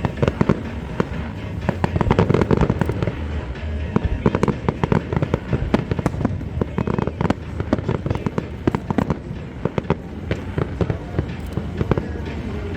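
Aerial fireworks bursting in quick succession, many sharp bangs and cracks close together, thinning a little near the end.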